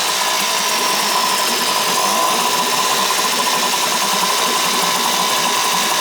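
Two-stroke outboard motor running steadily at a fast idle with its lower unit in a barrel of water. It is running again after a no-start that the owner suspects came from a speck of dirt holding the carburetor needle open.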